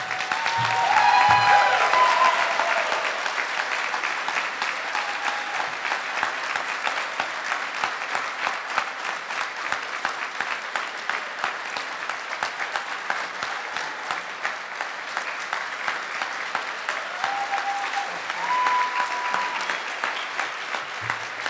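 Audience applauding steadily, loudest in the first couple of seconds. A few voices call out over the clapping near the start and again near the end.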